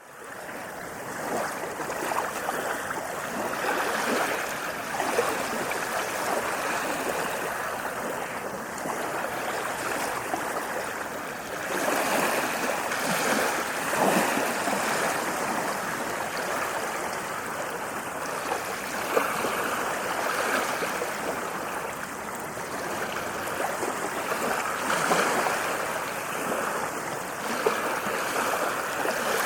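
Waves washing onto a sandy beach: a continuous rushing of surf that swells and eases every few seconds, fading in at the start.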